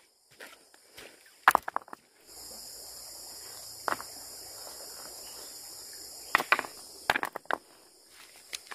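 Footsteps and a few sharp, separate knocks. A steady high-pitched hiss sets in about two seconds in.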